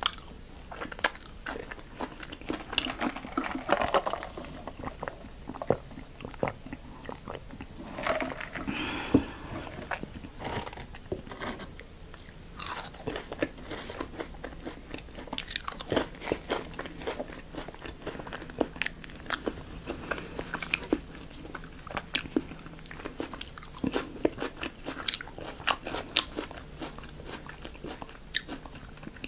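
Close-miked eating: crisp, crunchy bites and chewing, with a run of sharp crackles throughout and denser crunching at a few points.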